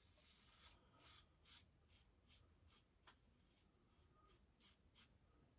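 Faint, short scrapes of a Qshave adjustable double-edge safety razor cutting through three or four days' stubble on a lathered cheek, a series of irregular strokes.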